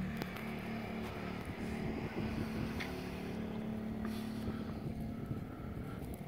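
A steady low engine hum with wind rumbling on the microphone.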